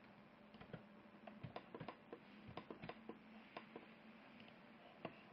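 Faint clicks and taps of a computer mouse and keyboard, about a dozen of them, irregular and bunched in the middle, over a low steady hum.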